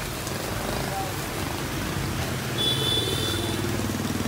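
A small motorbike engine passing close on a wet road, its tyres hissing through the water, over a steady hiss of rain. About two and a half seconds in there is a brief high squeal.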